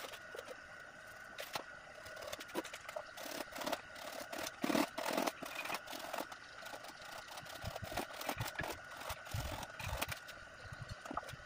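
Hand saw cutting through a short piece of PVC pipe: a run of rapid scraping saw strokes, followed by lower knocks as the cut pipe pieces are handled.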